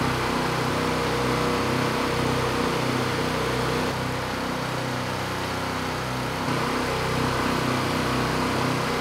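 Two small single-cylinder gasoline engines running together, unloaded and warm. Their steady drone wavers in a slow, regular beat because the two run at slightly different speeds.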